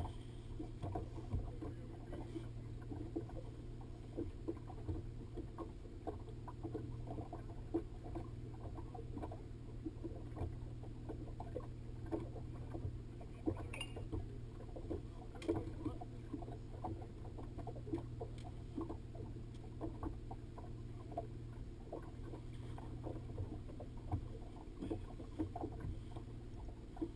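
Outboard motor running steadily at slow trolling speed, a constant low hum, with small waves slapping irregularly against the boat's hull.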